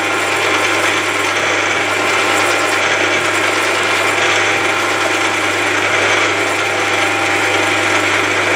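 Milling machine spindle running, a twist drill cutting a blind tapping hole into a steel bar: a steady mechanical whine and hum. The hole is being drilled deeper than the thread needs, to give the tap room.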